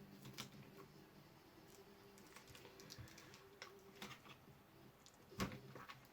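Faint small clicks and taps from hands working at an opened HP 250 laptop's motherboard, unplugging internal cable connectors, with one sharper, louder click about five and a half seconds in.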